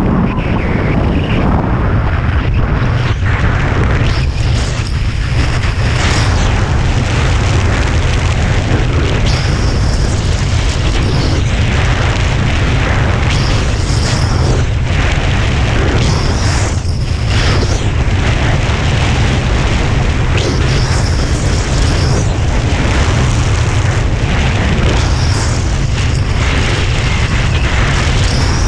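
Wind buffeting the microphone: a loud, constant low rumble with a rough rushing noise over it.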